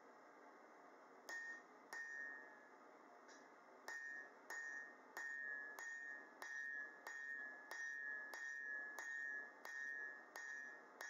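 Hammer blows on red-hot steel bar on an anvil, a steady run of strikes about one and a half a second starting about a second in, each with a short metallic ring from the anvil. A steady hiss runs underneath.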